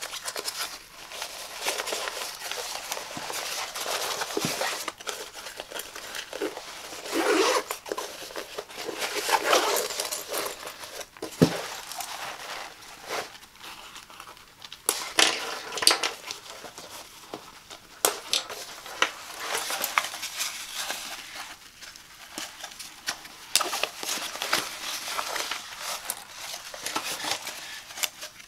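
Hands handling a nylon laptop backpack: the fabric rustling and crinkling while zips, straps and fasteners are worked, with sharp clicks scattered throughout and a few longer rasps.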